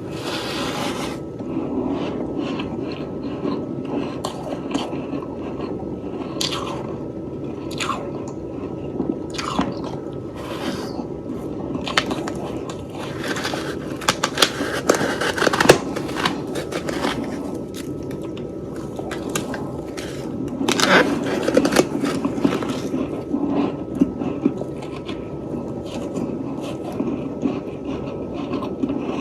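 Close-miked chewing of a mouthful of soft, fresh freezer frost: steady crunching with many sharp crackles, busiest about halfway through and again a few seconds later.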